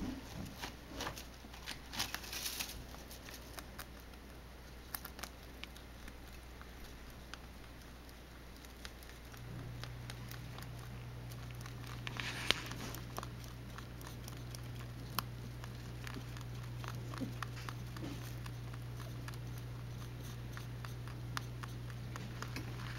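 Faint rustling, scratching and light clicks of a pet rabbit shifting about in bedding inside her carrier. A low steady hum comes in about nine seconds in.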